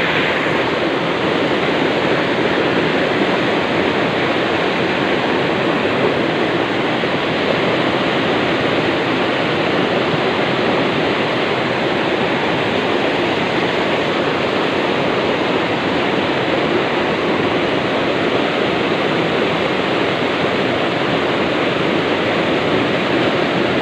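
Flood-swollen river water pouring over a concrete weir and churning into whitewater: a loud, steady rush.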